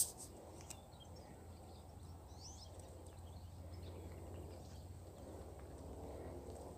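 Quiet rural ambience with no wind: a faint steady low hum and a few faint bird chirps.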